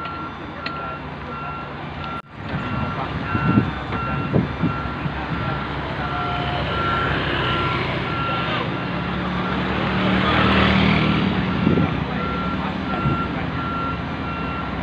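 Heavy construction machinery's warning beeper sounding a steady series of evenly spaced beeps over a diesel engine rumble, with a few knocks a few seconds in.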